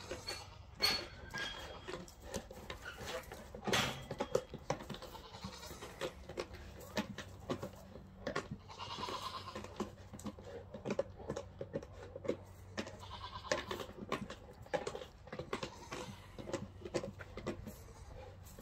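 Cane Corso tugging and hanging on a rope-hung rubber tyre: irregular short vocal noises from the dog, knocks and scuffs from the tyre and paws, and one longer drawn-out cry about nine seconds in.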